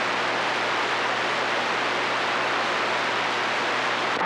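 Galaxy CB radio's speaker giving a steady hiss of static between transmissions, with a faint low hum underneath.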